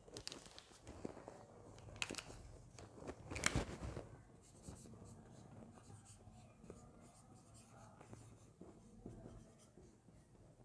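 A few scattered knocks and clicks, then a marker pen writing faintly on a whiteboard in short scratchy strokes.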